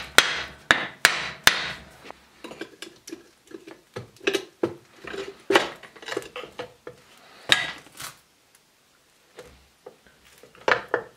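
A hammer knocking on the metal gearbox case of a FAAC 770N gate opener to loosen its halves: four sharp knocks in the first second and a half. Then lighter taps, clicks and scraping of a screwdriver prying at the case seam as the cover starts to come free, with a louder knock about halfway and another cluster of knocks near the end.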